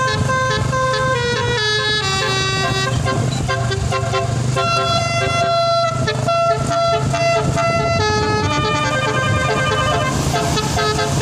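Basuri telolet horn, a multi-tone melody horn fitted to a vehicle, playing a tune of stepped notes over a steady low hum.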